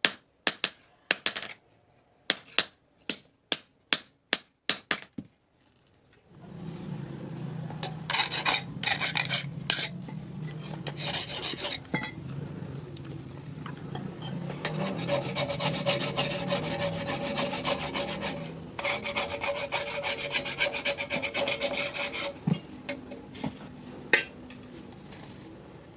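Hand hammer striking a meat cleaver blade on an anvil, about a dozen quick blows in the first five seconds. After a short pause comes a steady rasping rush with a low hum. It drops away about twenty-two seconds in, followed by a single sharp click.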